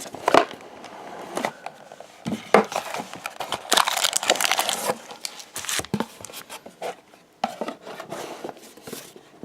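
Packaging being handled and unwrapped: irregular crinkling and rustling with sharp crackles, busiest in the middle.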